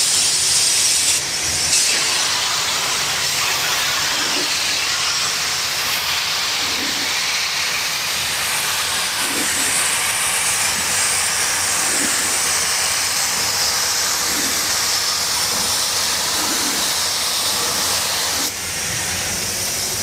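Gravity-feed paint spray gun hissing steadily as compressed air atomises clear coat onto a car door during the first coat. The hiss eases a little near the end.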